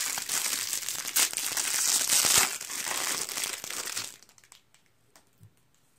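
Clear plastic wrapping crinkling as it is pulled off a small fire starter, stopping about four seconds in.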